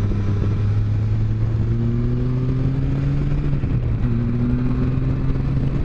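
Can-Am Spyder F3's Rotax 1330 inline-three engine pulling uphill under load, its note climbing slowly, then breaking off just before four seconds in and coming back a little lower at a gear change. Steady wind rush runs underneath.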